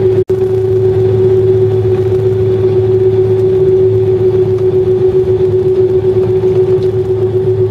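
Boeing 767-300's jet engines running steadily at taxi power, heard inside the cabin: a constant hum with one steady tone over it. The sound drops out for an instant just after the start.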